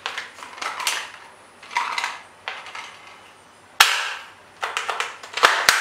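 Plastic toy gun being worked and fired: a string of sharp snaps and clicks, some in quick pairs, with the loudest snap about four seconds in.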